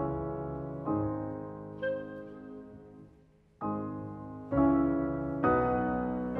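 Grand piano playing slow, separate chords, each struck and left to ring and fade, about one a second, with a brief hush about halfway through.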